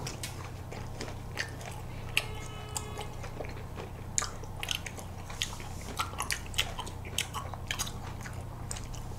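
Eating sounds from a Dwaeji Bar ice cream bar: irregular crisp crunches and bites of its crumbly chocolate coating, with chewing and small wet mouth clicks.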